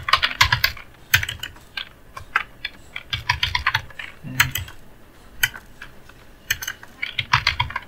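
Computer keyboard typing, with quick bursts of keystrokes separated by short pauses; a few keys are backspaced.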